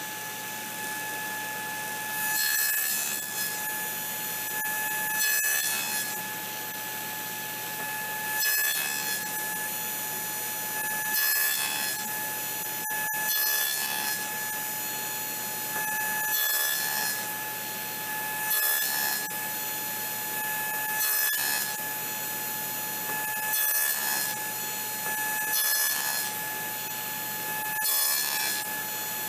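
Table saw running with a steady whine, cutting box-joint slots in the end of a board: about eleven cuts, one every two to three seconds, each a louder rush of the blade biting through the wood over the motor's tone.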